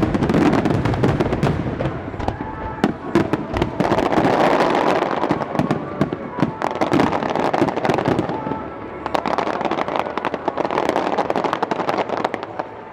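Starmine fireworks set to music: rapid volleys of shells bursting and crackling densely over background music, the bursts thinning out near the end.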